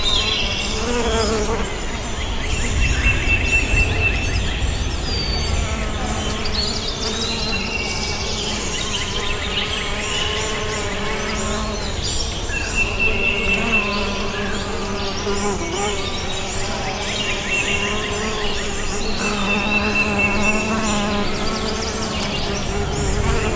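Bees buzzing in a continuous, wavering drone while small songbirds chirp and twitter above it. A short, high trill repeats every few seconds.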